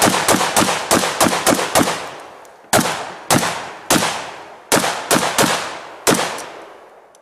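AK-47 and Thompson submachine gun fired together: a quick string of shots, about three a second, then seven more shots spaced out, each trailing off in an echo. The firing stops as the Thompson jams.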